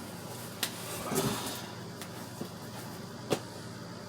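A few light clicks and knocks with a short rustle about a second in, the loudest click a little after three seconds: PC parts and their packaging being handled on a work surface.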